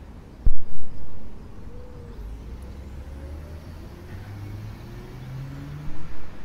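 Wind rumbling on the microphone, surging in loud gusts about half a second in and again near the end. Under it, the faint hum of a DIY quadcopter's Emax 2213 motors and 10-inch propellers flying high overhead, rising slowly in pitch.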